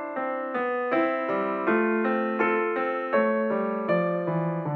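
Background music: a melody of evenly paced struck notes that die away, over held lower notes.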